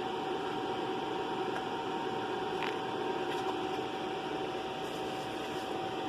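Steady background hum and hiss with a constant high whine, the sound of a machine running.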